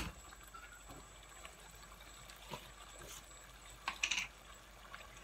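Small handling clicks and knocks: one sharp knock at the start, then a quick cluster of clicks about four seconds in as the lid comes off a plastic spice container of dried fenugreek leaves (kasuri methi).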